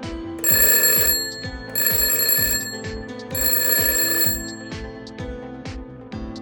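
Three loud bursts of high electronic ringing, each about a second long, over background guitar music.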